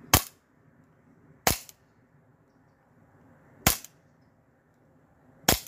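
Novritsch SSP5 gas blowback airsoft pistol fired four times through a chronograph, each shot a sharp crack with the slide snapping back, the shots one to two seconds apart.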